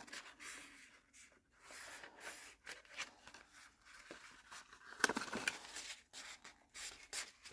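Soft rustling and light crinkles of patterned designer paper being folded and creased with the fingers, with a slightly louder rustle about five seconds in.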